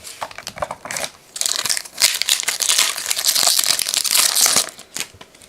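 A trading-card pack wrapper being torn open and crinkled by hand, a dense crackling that runs for about three seconds and dies down near the end, after a few light clicks and rustles at the start.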